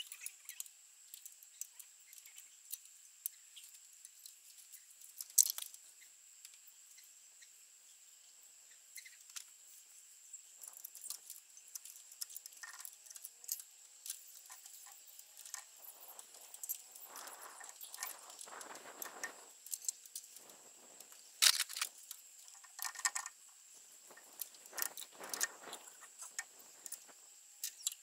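Hand tools working on an engine: scattered metal clicks and clinks of sockets, a ratchet and spanners, with two sharp louder knocks and a few short scraping sounds.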